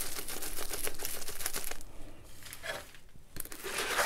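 Plastic-wrapped diamond painting canvas crinkling and rustling as it is rolled against its curl to flatten its folds, then unrolled. The rustling is dense for about the first two seconds, then quieter, with another brief rustle near the end.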